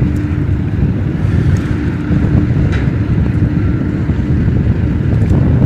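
Wind buffeting the microphone on open mudflat: a loud, steady low rumble, with a faint hum underneath.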